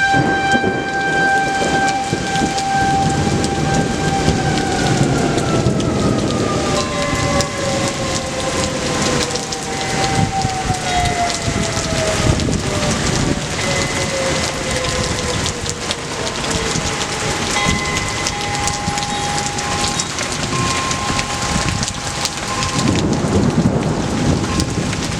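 Rain pouring down with thunder rumbling through a thunderstorm. A siren holds one steady tone, then from about four seconds in slowly winds down in pitch over some ten seconds.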